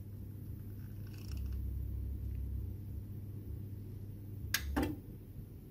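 Faint low hum from the Glowworm Ultimate 40FF boiler's flue fan, powered but barely turning: the sign that the fan has failed. It swells for a moment about a second in, and two sharp clicks come a little after four and a half seconds in.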